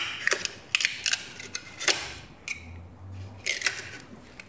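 Steel pick or screwdriver clicking and scraping against the remains of an old pressed-in cylinder liner as it is pried out of the G6EA V6 engine block, a string of irregular sharp clicks.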